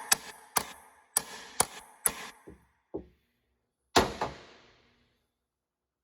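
Hammer blows on a stock shifter-assembly part to force it apart: a run of sharp knocks, about two a second, getting weaker, then one hard knock about four seconds in with a short ringing tail.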